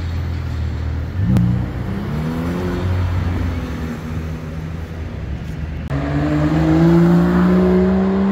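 Two sports cars accelerating. First a red Ferrari's engine note rises as it pulls through a turn, about a second in. Then, after an abrupt change about six seconds in, a second car's engine gets louder and climbs steadily in pitch under hard acceleration.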